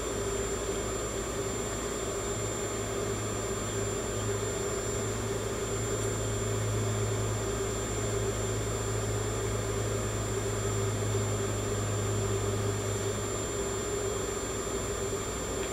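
Portable ozone generator running: a steady electrical hum with a low drone and fan noise.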